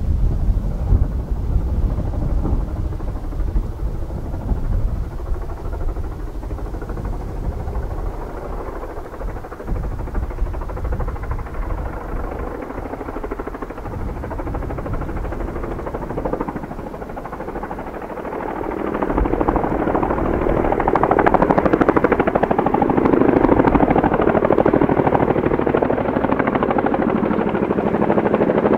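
Boeing CH-47F Chinook tandem-rotor helicopters approaching, their rotor chop growing much louder from about two-thirds of the way in as one comes close.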